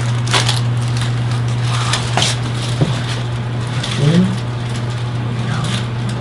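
Joints cracking during a chiropractic spinal adjustment: two short cracks about half a second and two seconds in, then a sharp pop just under three seconds in, over a steady low hum. A brief voiced murmur from a person follows about four seconds in.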